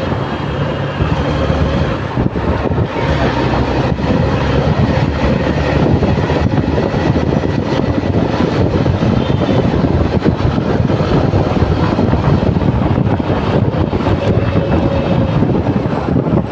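Steady rush of wind on the microphone of a phone mounted on a moving two-wheeler's handlebars, with the bike's engine and road noise beneath.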